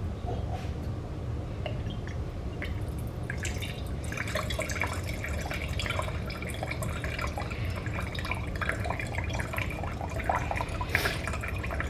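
Wine pouring from the bottle through a clear pourer spout into a glass: a trickling, gurgling stream that starts about four seconds in, after a few faint clicks.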